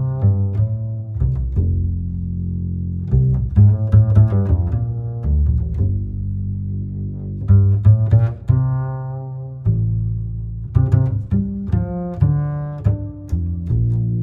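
Background music of string instruments, with plucked notes over held low bass notes.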